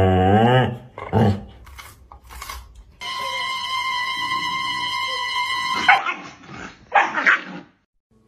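Dog vocal sounds from several clips: a husky's low, drawn-out howl-like vocalization that bends up in pitch and stops within the first second, then shorter dog noises. A steady high tone lasts about three seconds in the middle.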